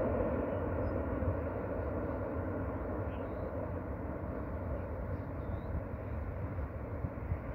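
Airbus A350 airliner landing, its Rolls-Royce Trent XWB jet engines giving a steady rumble that slowly fades as it touches down and rolls out.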